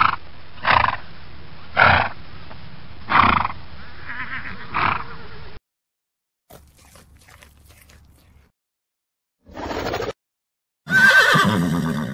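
Horse calls: a string of short neighs about once a second, then after a quiet gap two more, the last a longer whinny near the end.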